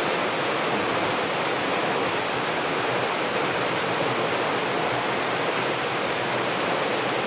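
Heavy rain falling, a steady even hiss with no letup.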